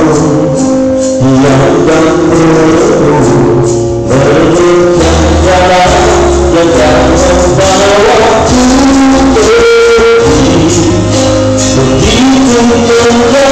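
A man singing into a microphone over loud backing music with a steady beat.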